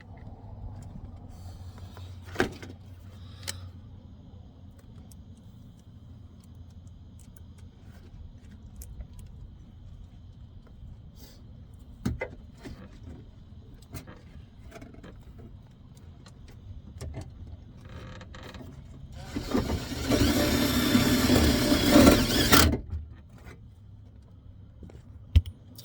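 A power drill drives in a speaker mounting screw in one steady run of about three seconds, near the end. Scattered light knocks and clicks of the speaker and door panel being handled come before it.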